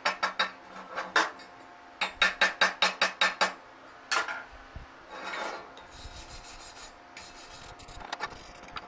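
Chipping hammer rapping flux-core weld slag off a steel bracket: two quick runs of ringing metallic taps, about six a second, then one knock. After that a wire brush scrubs the weld with a scratchy rasp, in quicker strokes near the end.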